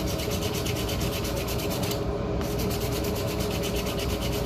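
80-grit sandpaper on a hand sanding block rasping in quick, even back-and-forth strokes while the corners of the workpiece are rounded over, the piece turned as it is sanded. There is a brief break in the strokes about two seconds in.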